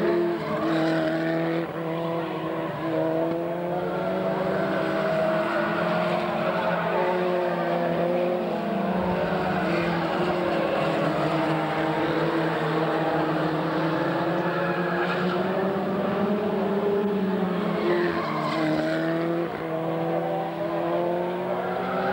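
Engines of a pack of open-wheel race cars lapping an oval together. Several overlapping engine notes rise and fall as the cars accelerate and lift through the corners.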